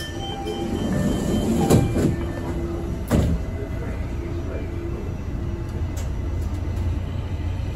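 Buffalo Metro Rail light-rail car running, heard from inside the car: a steady rumble with two sharp clunks, about two and three seconds in.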